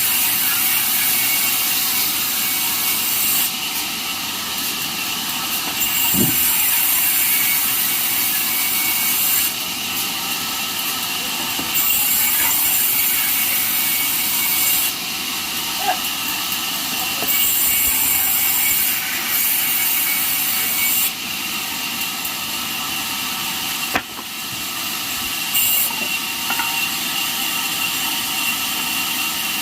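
Band sawmill blade cutting through a jackfruit log with steady sawing noise. The high hiss of the cut swells and eases in stretches of a few seconds, and there is one sharp click near the end.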